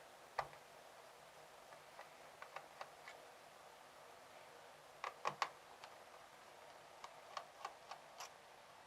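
Faint, irregular small clicks and taps of a screwdriver working the screws of a laptop's plastic bottom cover, with a louder cluster of clicks about five seconds in.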